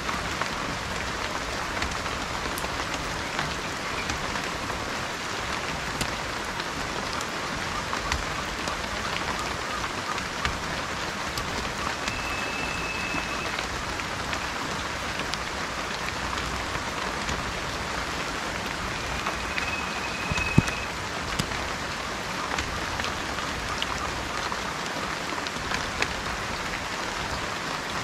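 Steady rain falling, with scattered drops landing close by. A short, high, level whistle sounds three times, about seven seconds apart, and a single sharp knock comes about twenty seconds in.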